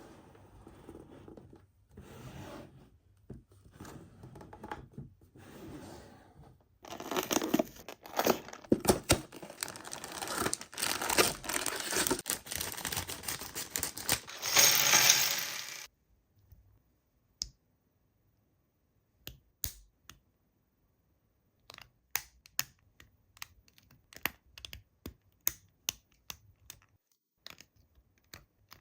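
Toy packaging being torn open and crinkled, loudest for about nine seconds in the middle, followed by scattered light clicks and taps.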